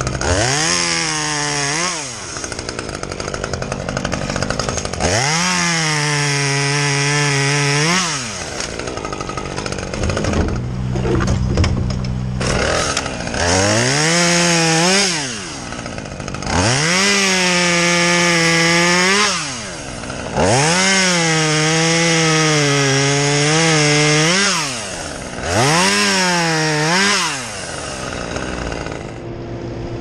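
Two-stroke chainsaw throttled up to full speed and held for a few seconds at a time, about six times, dropping back to idle between, as it cuts wood.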